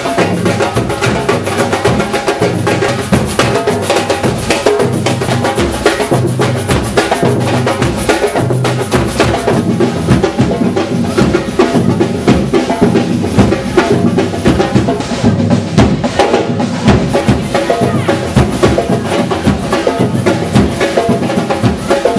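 Street drum band playing: many bass and snare drums beating a steady, busy rhythm.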